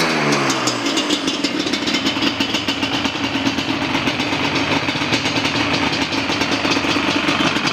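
2002 Yamaha Banshee's twin-cylinder two-stroke engine dropping back from a rev in the first second, then idling steadily on a cold start.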